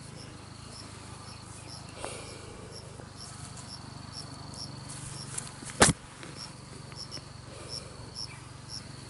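Insects chirping in a steady, regular series of short high pulses, a few each second, over a constant high drone, with one sharp knock about six seconds in.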